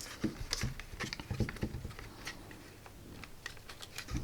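Light clicks and knocks of small parts being handled and fitted into a plastic speaker case: a quick run of them in the first couple of seconds, then scattered ticks.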